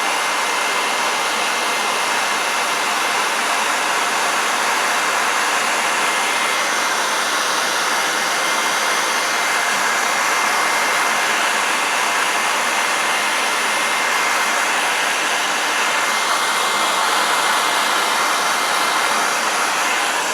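Handheld hot-air blower running steadily, with a thin steady whine over its rushing air, heating a vinyl gun-skin wrap to set it onto a magazine.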